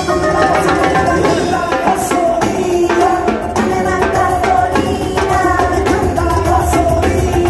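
Live band music led by a set of chrome timbales struck rapidly with sticks, the drum hits running over a sustained pitched melody.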